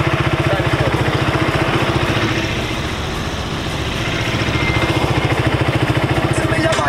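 New Zamco motorcycle's small single-cylinder engine idling with a rapid, even putter, easing off a little in the middle.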